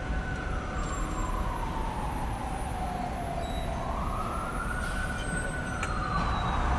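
A single tone gliding slowly down in pitch over about three seconds, rising again about four seconds in and starting to fall once more near the end, over a steady low rumble and hiss.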